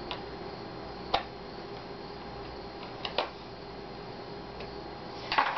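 Small screwdriver and fingers clicking and tapping on the plastic screen bezel of an Asus X54C laptop as its cover screws are driven back in. A handful of sharp clicks a second or two apart, with a quick cluster near the end, over a steady background hum.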